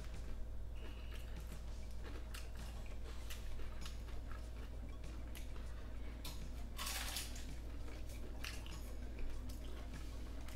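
Close-miked eating sounds: chewing and scattered small crunches and clicks while eating hard-shell tacos, with one longer, louder burst of noise about seven seconds in. A steady low hum runs underneath.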